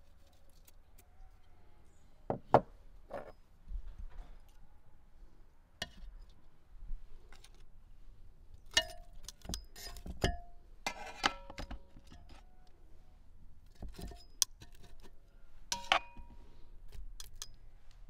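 Metal kitchen tongs knocking and clinking against a clay pot and a metal bowl as pieces of beef tail are lifted and dropped into the pot. The knocks are scattered and irregular, and a few of them ring briefly.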